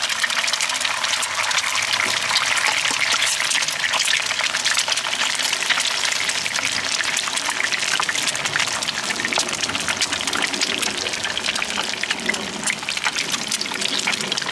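Eggs frying in hot oil in a wok: a steady sizzle thick with fine crackling spatter.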